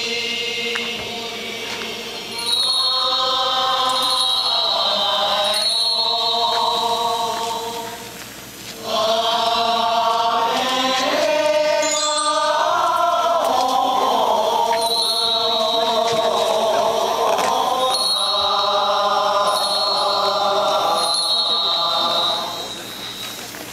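Goeika, Japanese Buddhist pilgrim hymns, sung by a group of voices in slow, long-held phrases. There are brief breaks about eight seconds in and again near the end.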